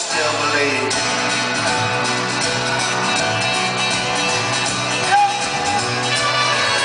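Folk-rock band playing live: an instrumental passage with strummed strings and a dense, steady band sound, heard from the audience in a large venue.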